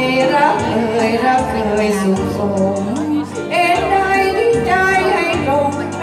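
A woman singing a Thai song into a microphone over a karaoke backing track, amplified through loudspeakers.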